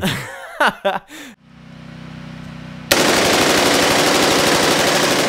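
A fully automatic AR-15-style carbine firing one long continuous burst that starts suddenly about three seconds in. Before it comes a quieter low steady hum.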